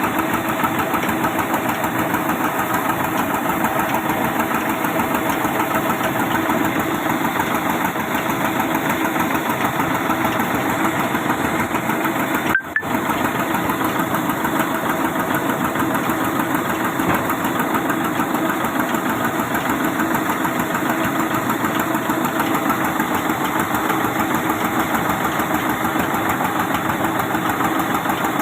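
Sawmill machinery running with a steady, loud mechanical drone, with a momentary break about halfway through.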